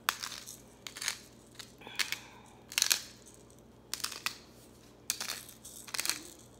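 Bottle-top pepper grinder being twisted by hand, cracking black peppercorns in a series of short crunching rasps, about one a second.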